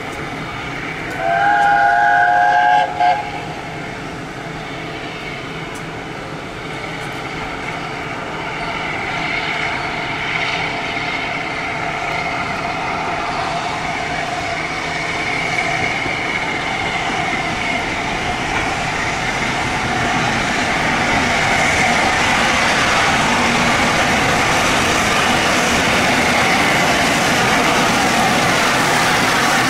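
LNER A4 class steam locomotive 60007 sounds its chime whistle about a second in: one long blast and then a short toot. The locomotive then runs in, its steady running noise growing louder near the end as it comes close.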